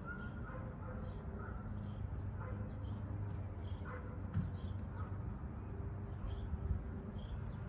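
Steady low background rumble, with faint short high-pitched chirps now and then.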